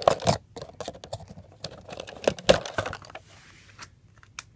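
Hands handling a cardboard doll box: a run of irregular small clicks and taps, loudest at the start and again about two and a half seconds in.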